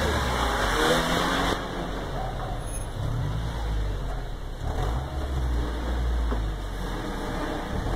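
Engines of police patrol SUVs running with a low, steady rumble as the vehicles pull out.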